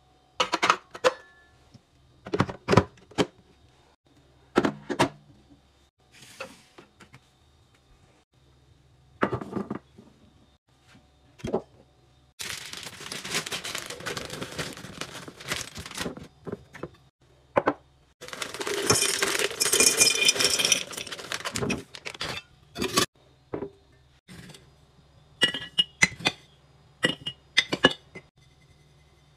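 Kitchen items being handled in a string of sharp clicks and knocks, starting with a coffee machine's plastic drip tray being set down. About halfway through comes a plastic bag rustling while dry contents pour into a glass jar in two long runs, then clinks of the glass jar and its metal lid near the end.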